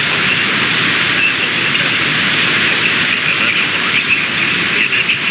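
Steady, loud hiss of radio static from a weakly received broadcast station.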